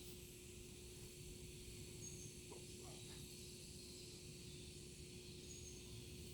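Quiet outdoor background: a steady high hiss and low rumble with a faint steady hum, and two faint brief sounds about two and a half and three seconds in.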